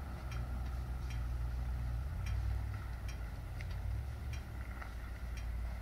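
A vehicle engine running at a steady low rumble, with faint, regular ticks about every two-thirds of a second.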